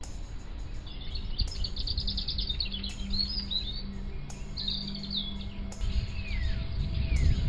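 Wild birds singing and calling: a rapid high trill of evenly repeated notes, a few short chirps, then two falling whistles. Under them runs a steady low rumble that grows louder near the end.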